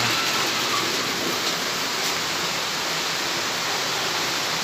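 A steady rushing noise with no change in level.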